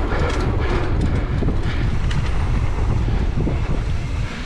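Wind buffeting a camera mic riding on a mountain bike going down a dirt trail, over a steady low rumble of tyres on the ground, with a few sharp rattles and clicks in the first couple of seconds.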